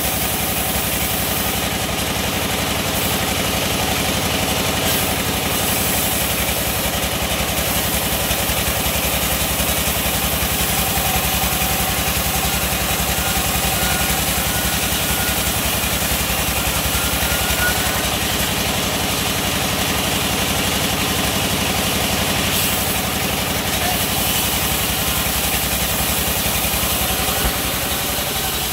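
Large vertical band saw running steadily as it rips a long teak log into planks: a continuous mechanical drone with the blade cutting through the wood.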